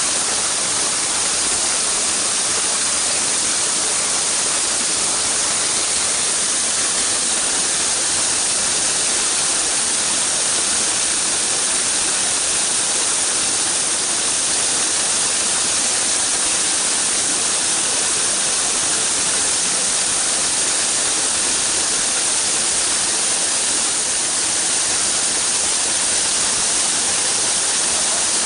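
Small waterfall cascading down a rocky gorge: a steady, unbroken rush of falling water, bright and hissing.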